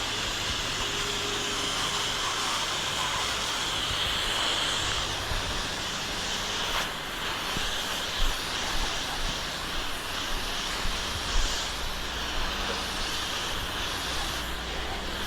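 8 GPM pressure washer running steadily with a constant hiss of water and soft-wash chemical spraying from the wand. A few short knocks in the second half.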